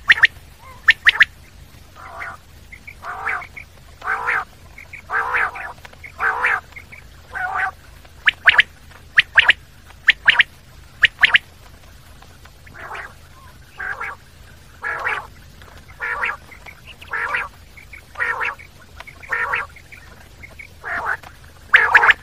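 Common quail calling repeatedly. Runs of short, sharp, clipped notes come near the start, around the middle and at the very end. Between them are lower, rougher calls at about one a second.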